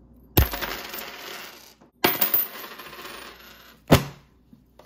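Coins dropped onto a hard tabletop, jingling and scattering, twice in a row, each spill dying away over about a second and a half, then one sharp hit near the end.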